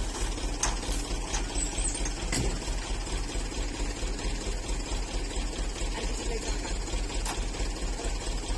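Diesel engine of a Toyota FJ40 running steadily with an even, rhythmic clatter, with a few light clicks over it.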